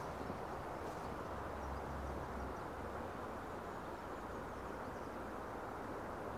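Steady outdoor ambience: an even rushing hiss, with a low rumble of wind on the microphone for the first couple of seconds.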